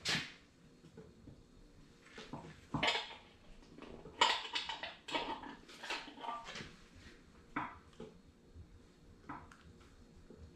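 Irregular clinks, knocks and scrapes of hand tools and hard objects being handled, coming in scattered bursts and loudest about four to five seconds in.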